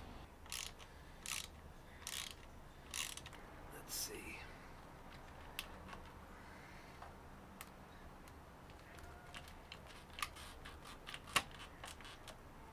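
Small hand ratchet clicking through five short even strokes, about one every 0.8 s, as a bolt on a motorcycle handguard clamp is turned. Then scattered light clicks and taps from handling the handlebar lever clamp and guard, the sharpest near the end.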